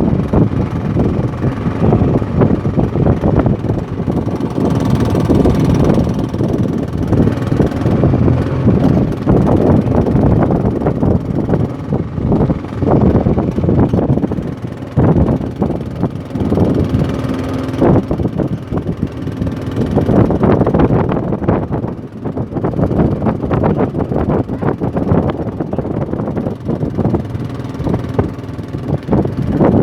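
Fishing boat's engine running steadily under way, with wind buffeting the microphone.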